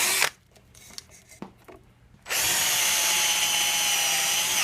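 Handheld electric power tool, drill-like, running in bursts at a steady pitch: a brief burst at the start, a pause of about two seconds with a few faint clicks, then running steadily again.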